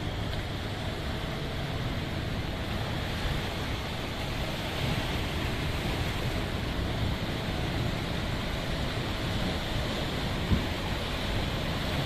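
Sea surf washing and breaking over rocks, with wind buffeting the microphone. One short knock near the end.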